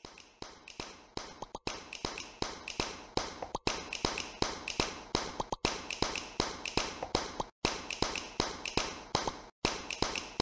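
Intro theme music built on quick, crisp taps and clicks with short high notes, a pattern that repeats in a loop about every two seconds.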